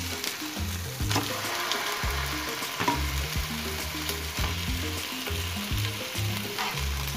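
Raw chicken drumsticks sizzling in hot oil in a granite-coated nonstick frying pan as more pieces are laid in. A few soft knocks sound as they are set down.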